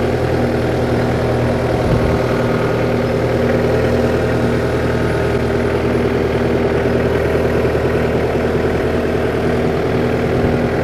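New Holland Boomer 50 compact tractor's diesel engine running at a steady idle.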